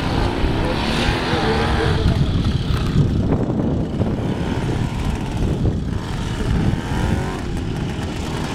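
Motorcycle engine running at low speed, its pitch rising and falling as the throttle is opened and eased through tight, slow manoeuvres.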